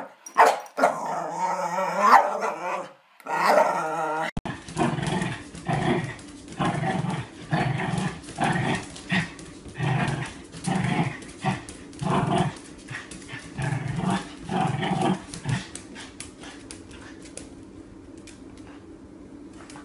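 A dog making drawn-out, wavering vocal sounds, then after a cut a small dog giving a steady string of short growls, more than one a second, that die away near the end.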